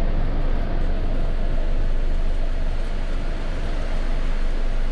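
Steady engine and cabin noise inside a Comil Invictus DD double-decker coach on a Scania K440 chassis: an even, unbroken noise with most of its weight in the low end.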